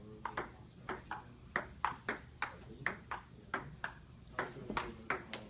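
Table tennis rally: the ball clicking off the paddles and bouncing on the table in a quick, steady back-and-forth, about three hits a second.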